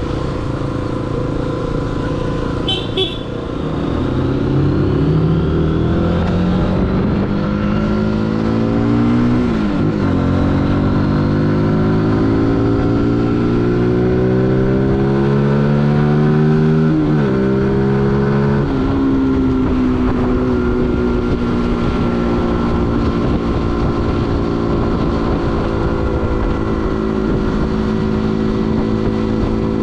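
Zontes U125's 125 cc single-cylinder engine accelerating up through the gears. Its pitch climbs in each gear and drops at upshifts about ten, seventeen and nineteen seconds in, then holds steady at cruising speed. A brief beeping comes about three seconds in.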